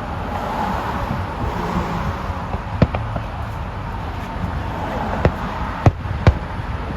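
Fireworks going off: a sharp bang about three seconds in, then three more close together near the end, over a steady background noise.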